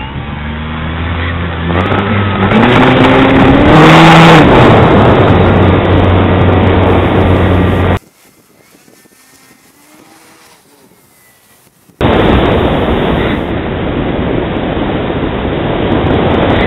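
Wind rushing over the onboard camera of an RC model plane in flight, with steady low tones and a whine that rises in pitch about two to four seconds in. It drops to a much quieter wind for about four seconds in the middle, then the loud wind rush returns.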